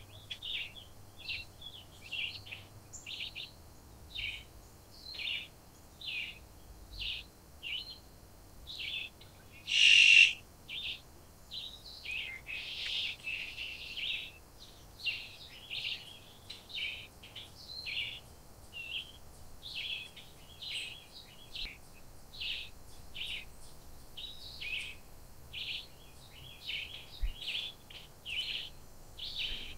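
Wild birds chirping in a steady series of short calls, about one or two a second, with one much louder, harsher call about ten seconds in.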